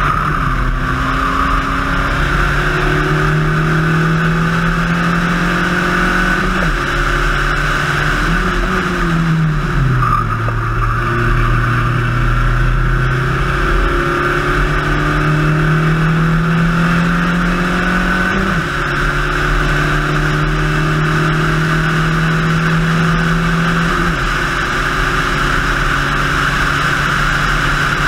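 Spec Racer Ford race car's four-cylinder engine at racing speed, climbing in pitch through the gears with sudden drops at upshifts about 6½, 13½, 18½ and 24 seconds in. The pitch sags more slowly around 9–10 seconds, under braking. A steady rush of wind and road noise runs underneath.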